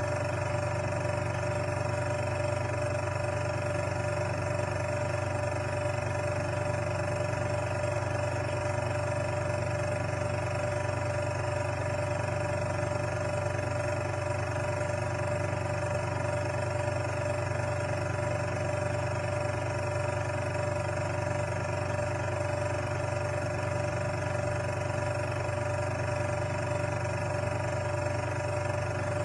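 A steady, unchanging hum made of several constant tones, with no breaks or events.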